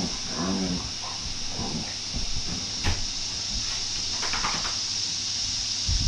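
Dogs playing together, giving short whining grumbles in the first second and a higher whine about four seconds in, with a sharp click near the middle. A steady high hiss of cicadas runs underneath.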